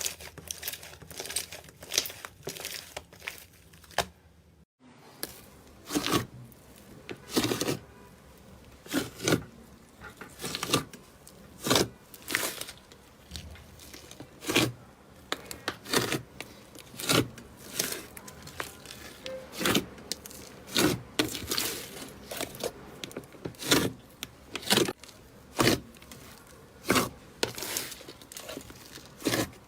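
Slime being squeezed and pressed by hand, giving short crackling, popping squelches over and over, about one or two a second, with a brief silent break about five seconds in.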